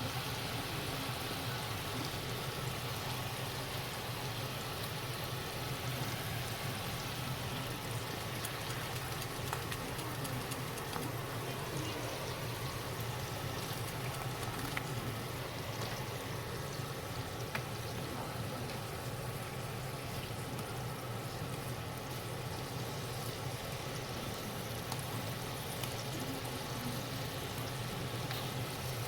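Daikon radish steaks cooking in a pan: a steady bubbling sizzle with a few small pops.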